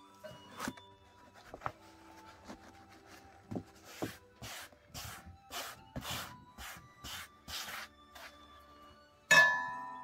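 Hands sweeping freshly ground barley flour across a leather tray in even strokes, about two a second. Near the end a metal spoon strikes a brass bowl once with a ringing clang that dies away.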